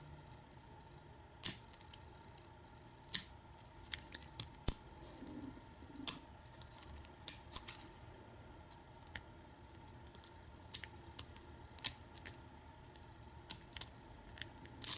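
Lock pick and tension wrench working the pins of a pin-tumbler challenge lock with a Kwikset keyway: irregular sharp metallic clicks and ticks, sometimes two or three close together, as pins are lifted and set while the core sits in a deep false set.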